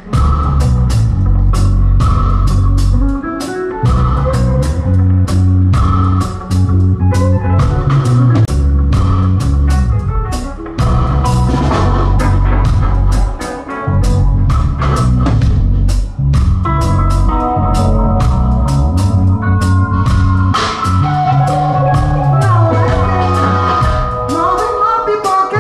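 Live reggae band playing an instrumental passage: a heavy bass guitar line and electric guitar over a drum kit keeping a steady beat, with a few short breaks in the groove.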